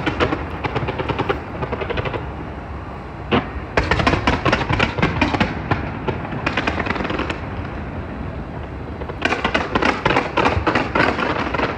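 Fireworks going off in rapid strings of sharp cracks, in three dense volleys with a single bang between the first two, over a steady low rumble.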